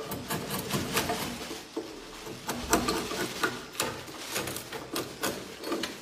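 Long swiftlet-nest harvesting pole scraping and knocking against the wooden nesting planks as a nest is prised loose: a run of irregular scrapes and sharp wooden knocks.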